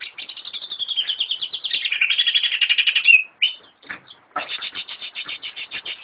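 Cucak ijo (greater green leafbird) singing: a fast run of high chirping notes, about ten a second, for around three seconds. After a short pause comes a second fast run.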